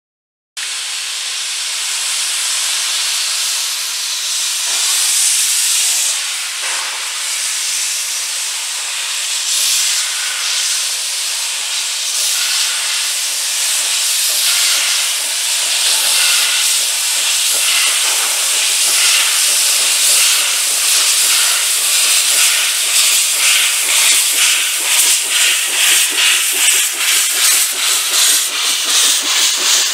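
Small steam tank locomotive pulling away with its train: steady loud steam hiss from the open cylinder drain cocks, with exhaust chuffs growing into a clear beat of about two a second in the second half as it passes close by.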